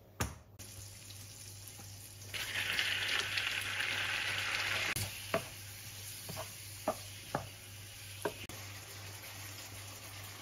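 Chopped tomatoes sizzling in a hot frying pan, the hiss stopping suddenly about halfway through. Then a wooden spatula stirring the pan and knocking against it about six times.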